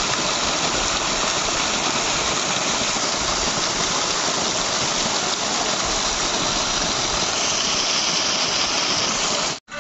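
Steady rushing and splashing of a garden pond fountain, its water jet falling back into the pond. It cuts off abruptly near the end.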